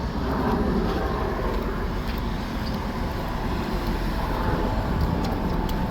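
Steady low rumble of road traffic with wind buffeting the microphone.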